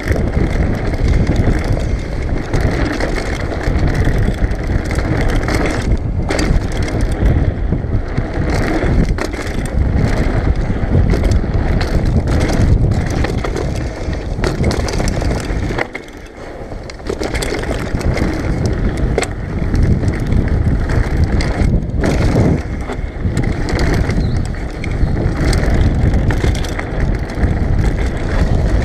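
Mountain bike rattling down a dirt forest trail: tyre noise and wind buffeting the camera microphone, with frequent knocks and clatter from the bike over bumps. It eases briefly about halfway through.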